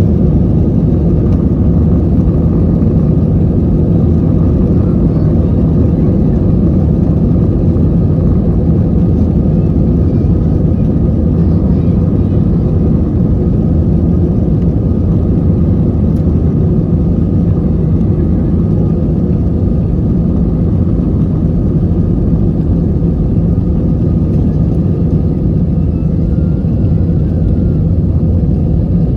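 Steady engine drone and rushing air inside a jet airliner's cabin, with a low hum.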